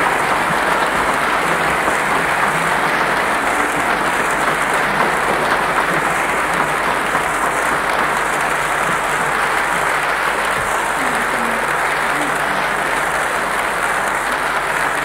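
Audience applauding steadily at the end of an opera duet performance.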